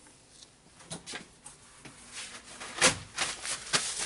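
Scattered light clicks and knocks of metal rotary-hammer parts being handled and set down on a wooden workbench, the loudest about three seconds in.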